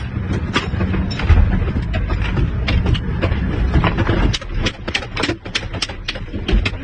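Vehicle engine running with a low rumble, overlaid by many irregular clattering knocks and rattles.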